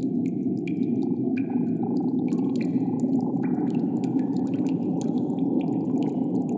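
Cave wind sound effect: a steady, low rushing of wind, with scattered small drips and ticks over it.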